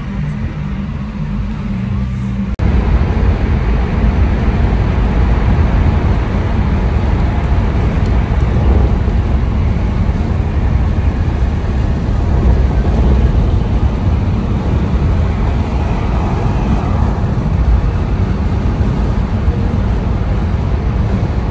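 Steady rumble of road and wind noise inside a moving car. About two and a half seconds in it cuts abruptly to a louder, fuller rumble.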